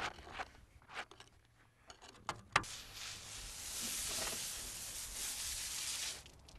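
A few sharp clicks, then a steady hiss of compressed air blowing stone dust off a carved expanded-obsidian bear, cutting off near the end.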